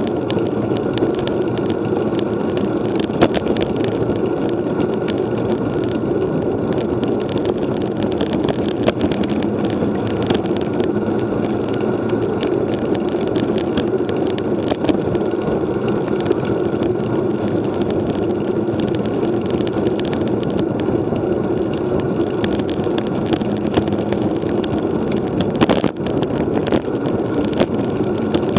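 Steady wind and road noise from a road bike being ridden, with frequent small clicks and rattles.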